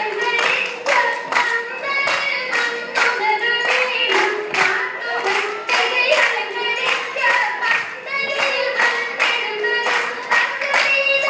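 Margam kali song: a single voice sings the melody over the dancers' rhythmic hand claps, which come evenly at about three a second.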